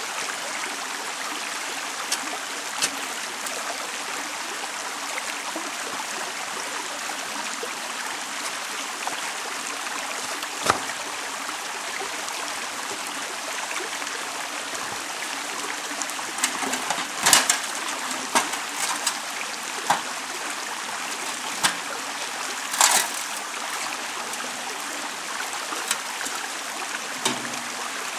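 Creek water running steadily, with splashing and dripping as sluice matting is rinsed out in a plastic gold pan of water. Scattered sharp knocks and splashes come through, the loudest about 17 and 23 seconds in.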